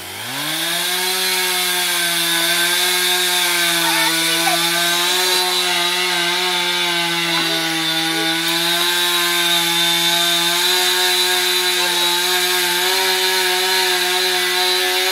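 Husqvarna 455 Rancher two-stroke chainsaw revving up in the first second, then held at a steady high throttle while it cuts a hole into a dead oak trunk.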